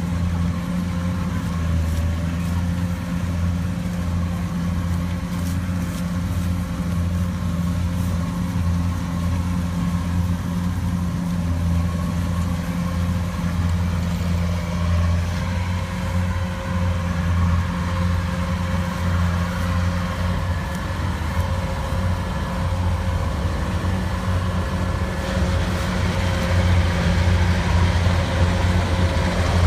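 Engine of a rice harvesting machine running steadily with a deep, even drone, growing a little louder and harsher near the end.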